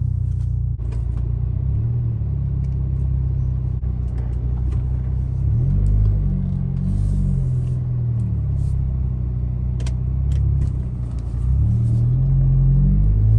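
2006 VW Golf GTI's turbocharged four-cylinder engine pulling the car away and accelerating, heard from inside the cabin. Its pitch climbs about halfway through and again near the end. It runs without misfiring, its new coil packs fitted.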